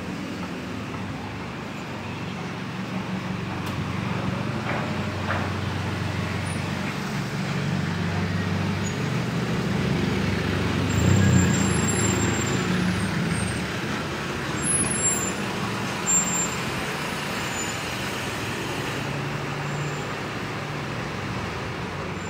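Street traffic: a truck engine running close by as it passes, swelling to its loudest about halfway through, with cars and a motorcycle on the road. Two short, sharper sounds come a few seconds later.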